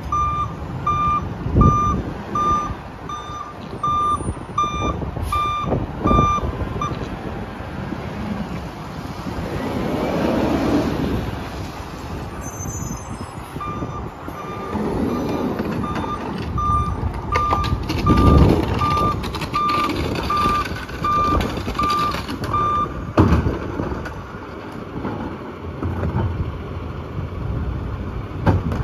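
Backup alarm on a diesel Peterbilt 567 garbage truck beeping about twice a second as it reverses, over the running diesel engine. The beeping stops for several seconds about a quarter of the way in, then starts again, with a few dull thuds along the way.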